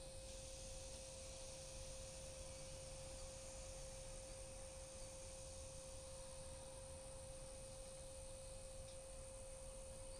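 A faint, steady pure tone at one unchanging pitch, over a low rumble.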